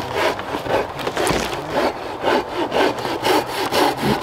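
A hand saw with a curved blade cutting through a pine log in steady back-and-forth rasping strokes, about two a second.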